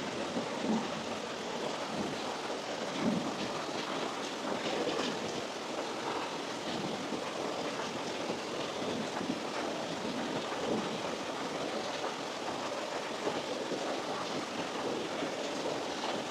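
Steady rain-like rushing noise with a few faint ticks and, near the start, a couple of low rumbles.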